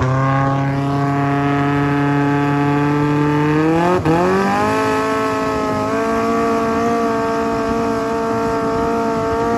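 Toyota 4A-GE inline-four with individual throttle bodies and a two-foot open exhaust driving a longtail boat, running at high revs. About four seconds in its pitch jumps sharply higher and then holds steady. The owner calls the sound 'sick'.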